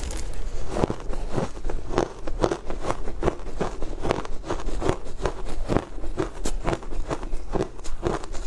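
Close-miked crunching of a mouthful of shaved ice dusted with matcha powder being chewed, a quick irregular run of crisp crunches about two to three a second.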